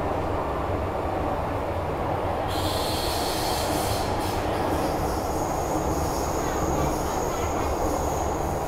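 Inside a Metro-Cammell M-Train carriage on the move: the steady low rumble of the running train. About two and a half seconds in, a hiss and a high-pitched squeal set in, and from there a thin, steady high whine holds on.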